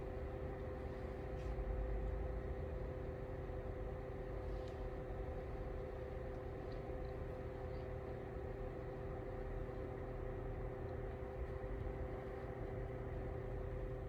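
Lasko CT32791 ceramic tower space heater running: a steady whoosh of fan air with a constant motor hum made of two steady tones.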